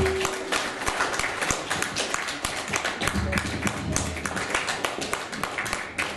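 Room audience applauding with many quick, uneven hand claps, with voices mixed in.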